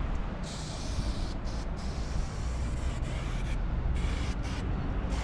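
Aerosol spray paint can hissing as paint is sprayed onto a wall: one long spray of about three seconds with two brief breaks, then a few short bursts near the end.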